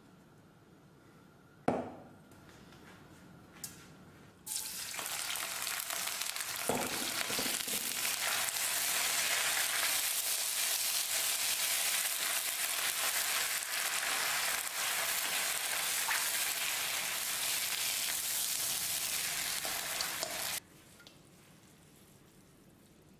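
A single knock, then spinach, garlic and chilies in sauce hitting a very hot oiled wok: a sudden loud, steady sizzle of stir-frying that runs about sixteen seconds and cuts off abruptly near the end.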